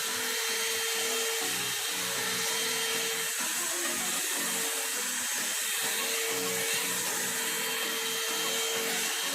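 One-step hair dryer and styler brush blowing on its high setting: a steady motor whine and rush of air, fluttering as the brush works through the hair.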